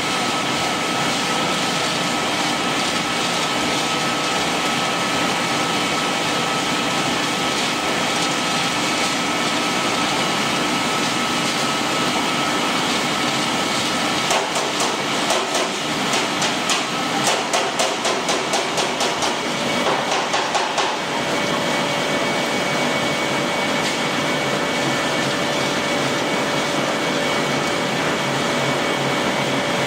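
Wheat straw pellet mill running with a steady, loud mechanical hum. For several seconds past the middle a quick run of knocks or rattles sounds, about three a second, and after it the pitch of the hum shifts slightly.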